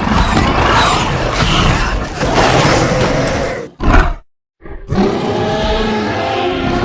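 Dinosaur roar sound effects made for an Indoraptor: a long, rough roar, then a short burst that cuts off into a moment of dead silence just after the middle, then a pitched, tonal roar.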